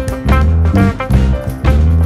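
Instrumental background music with plucked strings and a steady beat.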